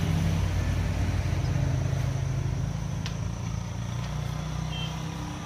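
A passing road vehicle's engine, a low steady drone that fades over the second half. A single sharp click about three seconds in.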